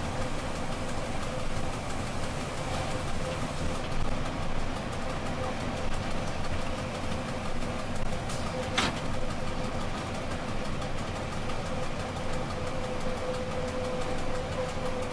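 Rhaetian Railway train running at speed, heard from inside at the front: a steady rumble of wheels and running gear with a thin steady whine over it, and one sharp click about nine seconds in.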